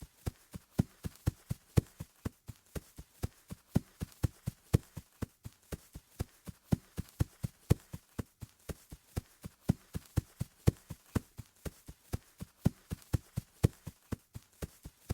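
Footsteps of a person running on grass: an even run of about four footfalls a second.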